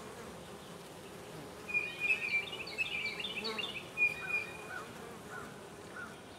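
Honey bees from an opened hive humming steadily, while a bird sings a run of short chirps and whistles from about two seconds in to about four and a half seconds.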